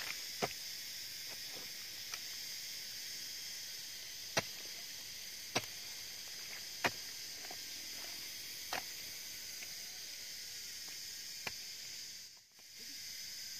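Garden hoe chopping into loose soil, a sharp strike roughly every second and a half, stopping a little before the end. Behind it, a steady chorus of insects chirring.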